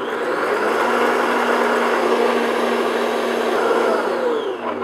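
Electric stand mixer running at high speed, its whisk beating meringue in a glass bowl, with a steady motor hum. Near the end the motor pitch falls and the noise dies down as the mixer slows.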